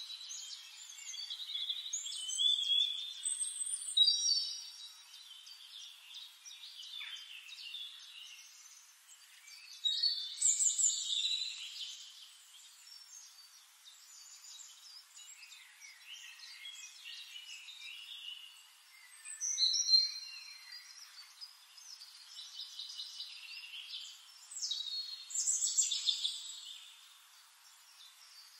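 Birds chirping and singing in short, repeated phrases, with louder bursts of song several times and softer chirping in between.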